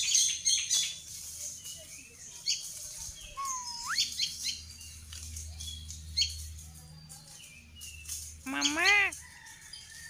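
Indian ringneck parakeets calling. A flurry of sharp chirps comes at the start, a whistle holds and then slides steeply upward about four seconds in, short chirps are scattered through, and a loud wavering call comes near the end.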